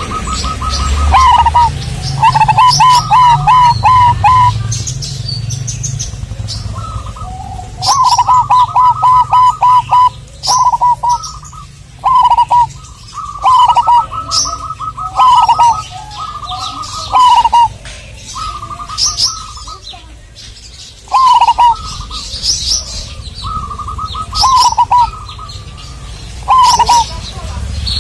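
Zebra dove (perkutut) cooing over and over in fast, stuttering trilled phrases, with high, short chirps of smaller birds over it.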